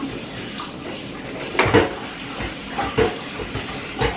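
Dishes and kitchen utensils knocking and clinking on a counter, four or five short sharp knocks over a steady rushing noise.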